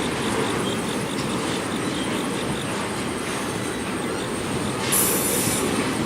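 Intermodal freight train's container cars rolling past: a steady rumble of steel wheels on rail, with a brief high hiss or screech about five seconds in.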